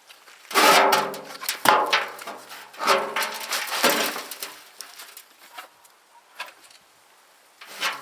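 Plastic nursery pot creaking and crackling as a yacon root ball is worked out of it: four loud creaks in the first four seconds, then lighter knocks and rustling.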